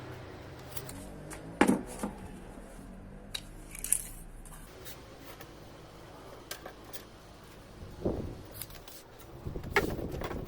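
Handling noises while making something by hand indoors: a few scattered sharp clicks and light knocks over a quiet background, the loudest about one and a half seconds in and another near four seconds.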